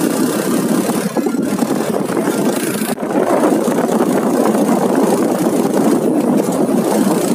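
Motorcycle running at road speed while being ridden, its engine mixed with a steady rush of wind on the microphone.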